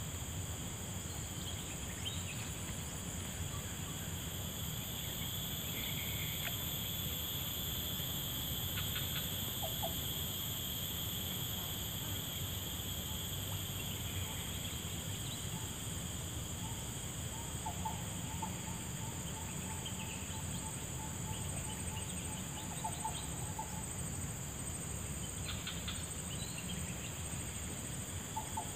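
Forest insect chorus, a steady high-pitched drone of several pitches at once, over a steady low rumble, with a few short bird calls in the second half.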